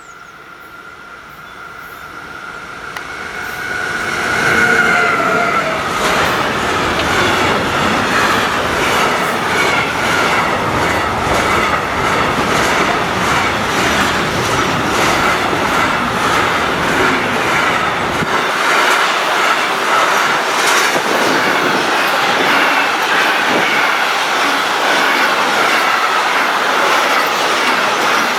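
A train approaching and passing close by, its wheels clicking rhythmically over the rail joints. It builds up over the first few seconds, then stays loud, with a steady high-pitched tone running through it.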